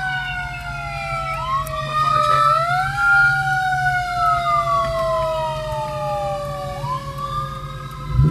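Supercharger whine from a 2003 Mustang SVT Cobra's supercharged V8, which has a smaller aftermarket pulley, heard inside the cabin at low speed. The whine jumps up in pitch about three times and slides slowly down in between, over a steady low exhaust rumble from its Magnaflow cat-back.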